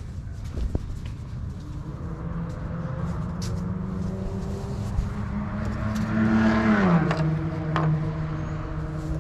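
A car driving past: its engine hum grows louder, then drops in pitch as it passes about seven seconds in, and carries on at the lower pitch.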